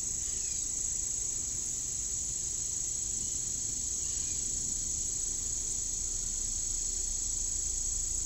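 Summer insect chorus in a grassy field: a steady, unbroken high-pitched drone.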